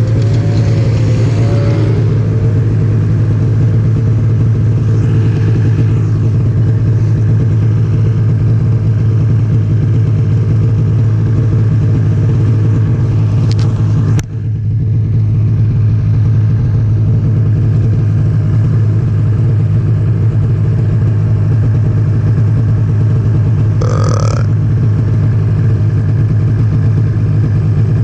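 Snowmobile engine running steadily at a constant pitch, with a brief sharp dip about halfway through and a short higher-pitched sound near the end.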